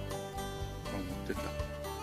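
Background music: plucked acoustic guitar and string instruments in a light, country-style tune.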